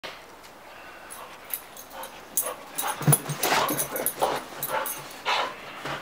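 Border collie snuffling with its nose in the snow: a run of short, quick puffs of breath that come faster and louder from about halfway through.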